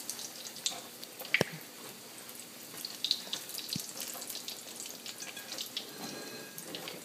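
Johnny cakes frying in hot oil in a skillet, a steady sizzle with fine crackling. Two sharp knocks, the louder about a second and a half in, come as the cakes are turned with a fork.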